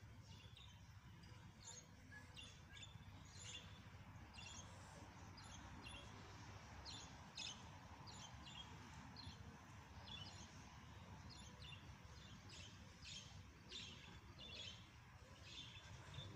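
Small birds chirping faintly, with short high calls coming several times a second, irregularly spaced, over a faint low rumble.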